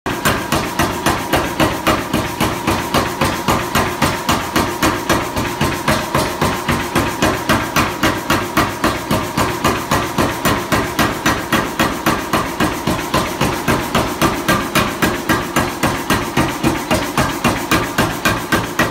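Air hammer pounding an aluminum bar through a custom texturing die, hammering the surface. A rapid, even run of metallic blows at about three a second keeps up throughout.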